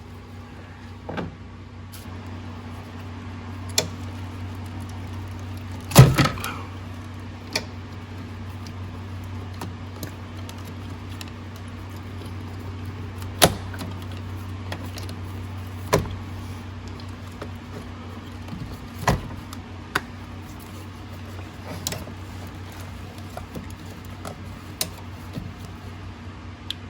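Scattered metallic clanks and knocks as tools and parts are worked against the engine while the turbocharger is pried loose from the top of a Ford 6.0L Power Stroke diesel. The loudest knock comes about six seconds in, all over a steady low hum.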